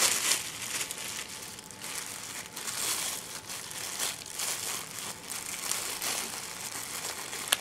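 Plastic wrapping crinkling and rustling as it is pulled off a new humidifier, with irregular sharp crackles.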